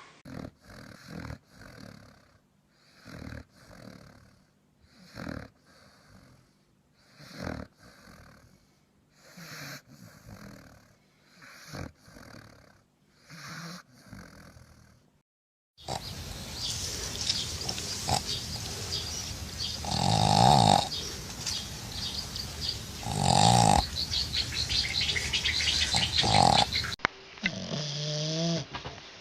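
Sleeping dog snoring, one snore about every two seconds with quiet between. About halfway through it changes to a louder, noisier recording where the snores come about every three seconds.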